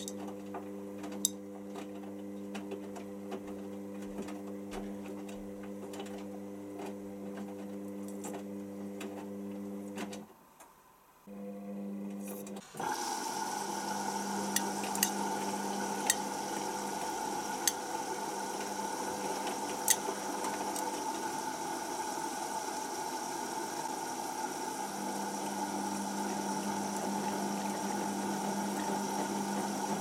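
Hotpoint Aquarius WML540G washing machine tumbling its load in the rinse: a steady motor hum that stops for about a second around ten seconds in, then the water inlet opens about thirteen seconds in and a steady rush of water fills the drum as it turns again. A few sharp clicks are scattered through it.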